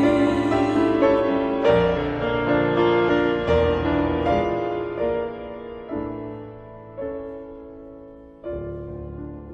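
Piano playing the slow closing bars of a gospel hymn with no voice. Chords are struck every second or so and left to ring and die away, growing quieter toward the end.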